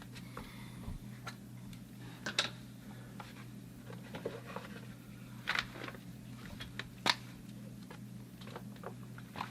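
A few light clicks and knocks of plumbing supplies being handled, over a steady low hum.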